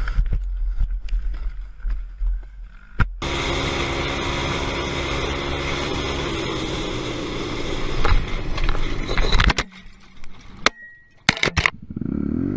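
Quad (ATV) crash sounds from onboard cameras: heavy wind rumble and knocks as a quad tumbles. After a cut about three seconds in, an ATV engine runs steadily, louder for a stretch, then gives way to sharp knocks and thuds as it crashes.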